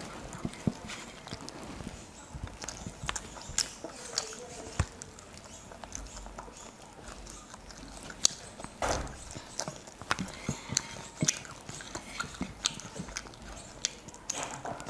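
Eating rice and chicken curry by hand: fingers kneading rice and gravy on a plate, with irregular small clicks and smacks, mixed with chewing.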